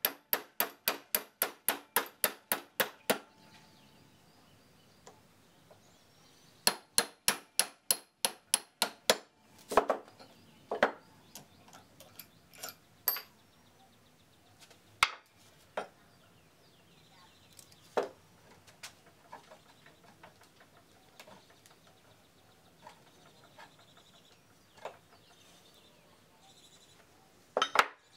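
Hammer tapping in quick runs of ringing metal-on-metal blows, about four a second, on the steel shaft of a South Bend lathe's stepped cone drive pulley to drive the shaft free. A second run of blows starts about seven seconds in. After that come scattered knocks and clinks of heavy iron parts being handled and set down on the bench.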